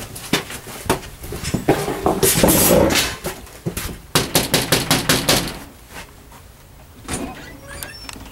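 Footsteps on a wooden porch deck, then a loud scuffing noise about two seconds in. About four seconds in, a fist knocks about seven times in quick succession on a trailer's glass storm door.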